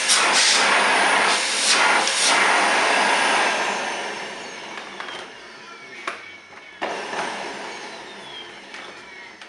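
Samsung vacuum cleaner running with a loud rush of air, then fading as its motor whine falls, spinning down. About two-thirds of the way through it comes on again sharply and fades once more, with a few clicks in between.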